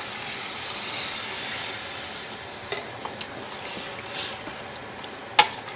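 Water poured into a hot pot of frying chicken and herbs, hissing and sizzling, the hiss easing off after the first couple of seconds. A few sharp knocks of a utensil against the pot, the loudest near the end.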